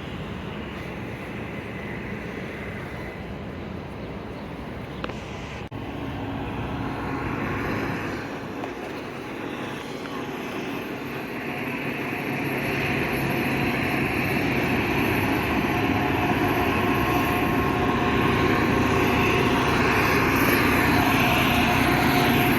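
Outdoor engine noise that grows louder through the second half, with a steady low hum of a few held tones.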